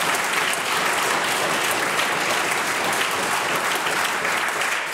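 Legislators applauding in a parliamentary chamber: many hands clapping in a dense, steady patter that eases off near the end.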